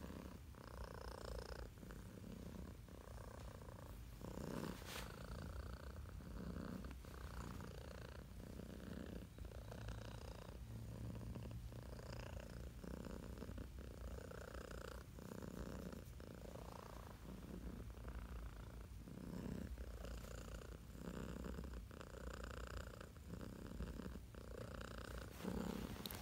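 Tabby cat purring steadily while being stroked, the purr rising and falling with each breath about once a second.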